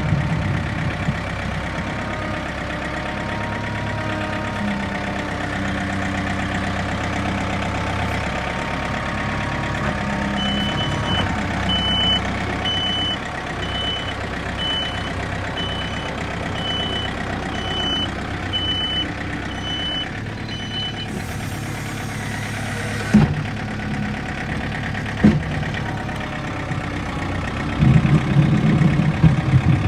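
Backhoe's diesel engine running under load, with its reversing alarm beeping about once a second for some ten seconds in the middle. Two sharp knocks come a couple of seconds apart afterwards, and the engine grows louder near the end.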